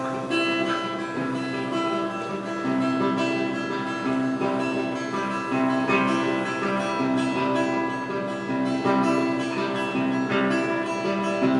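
Acoustic guitar playing an instrumental intro, its chords changing about once a second.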